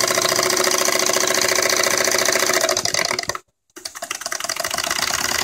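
Jensen Model 55 toy steam engine running fast: a steady rapid chuffing and clatter from its cylinder and crank. The sound cuts out completely for a moment about two-thirds of the way through, then returns quieter and builds back up.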